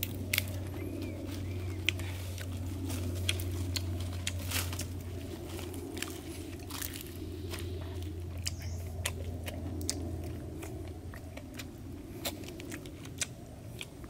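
A man eating fish, chewing and crunching, with many sharp irregular clicks and crackles, over a steady low hum that fades about ten seconds in.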